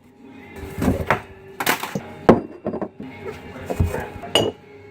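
Irregular knocks, thunks and clicks, several a second at times, with a quieter stretch in the middle.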